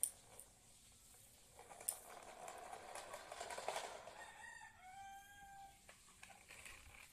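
A rooster crowing once, about four seconds in, a single crow of under two seconds. Before it, a rustling noise with a couple of sharp clicks.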